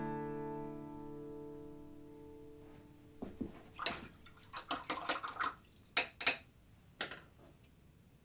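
The last strummed acoustic guitar chord rings out and fades away over about three seconds. It is followed by a scatter of short, sharp clicks and light knocks.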